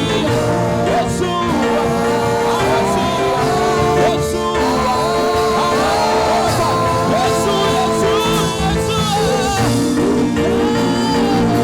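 Worship music: a voice singing a melody over held chords and a steady bass line.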